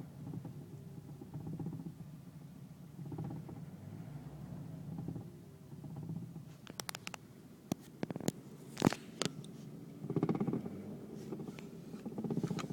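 Knocking from around the centre console of a Mk4 Volkswagen Golf, heard inside the cabin over a low, swelling rumble: a run of sharp knocks and clicks in the middle, the loudest near the end of that run. It is a fault that the owner places in the gearbox or handbrake area.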